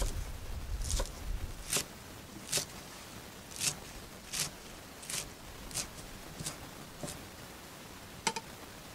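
Kitchen knife chopping celery on a thick round wooden chopping board: about ten separate sharp strikes, roughly one every three-quarters of a second.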